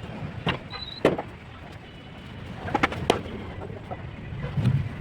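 Several sharp taps or knocks: one about half a second in, one just after a second, and two close together around three seconds. A low, soft burst comes near the end, over steady background noise.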